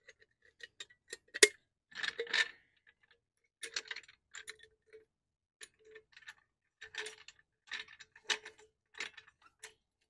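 Car jack and its metal handle clicking and clinking irregularly as it is worked by hand, several of the clinks with a short ringing note, one sharp click louder than the rest about a second and a half in.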